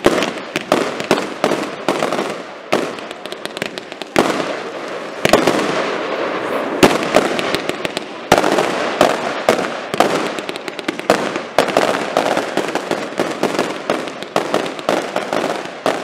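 Fireworks display: aerial shells and multi-shot bursts going off in rapid succession, many sharp bangs over a continuous crackling hiss, with sudden louder volleys about 4, 5 and 8 seconds in.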